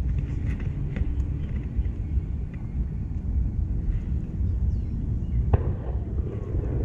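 Wind buffeting the microphone: a steady, fluttering low rumble. A single sharp click sounds about five and a half seconds in.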